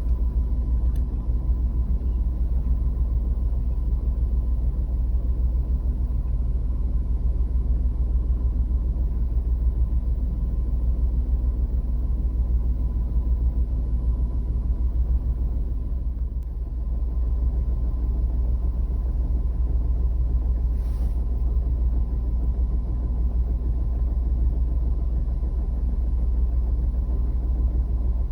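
Suzuki Every DA17V van's 660 cc three-cylinder engine running with a steady low rumble and a faint, constant high tone. The van is nearly new, and the recording is meant to capture an abnormal noise that seems to come from the engine and whose cause has not been found.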